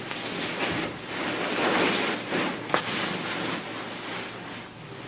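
Nylon sleeping bag and Outdoorsman Lab ultralight inflatable sleeping pad rustling and crinkling in swells as a person shifts on them, with one sharp click about halfway through; the rustling settles to a softer, steadier hiss near the end.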